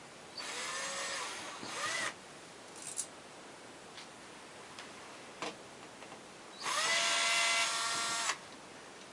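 Small electric screwdriver or drill running in two short bursts, each with a whine that rises as the motor spins up and then holds steady, with a few light clicks between them.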